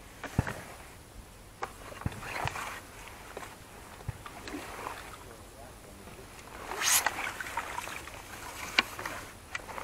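Fishing tackle being handled at the bank: scattered clicks and knocks as the pole is lifted and shipped back. A brief rushing noise comes about seven seconds in, and a sharp tick near the end.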